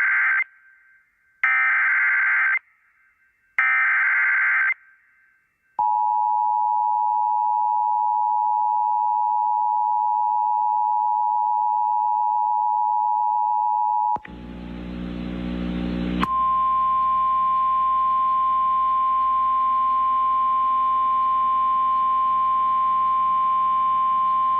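Emergency Alert System tones. Three short screeching bursts of SAME digital header data, then the two-tone EAS attention signal held steady for about eight seconds. After a couple of seconds of buzzy noise comes a single steady NOAA Weather Radio warning tone with a low hum under it.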